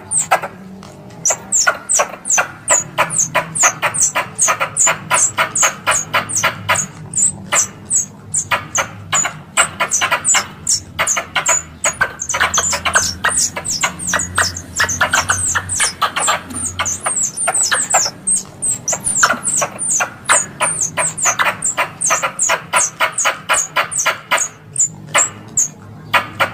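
Squirrel calls played as a hunting lure: a fast, steady chatter of sharp chips, several a second, in long bouts with short pauses.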